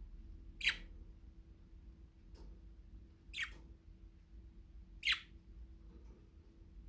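Budgerigar giving three short chirps a couple of seconds apart, with a fainter one between the first two.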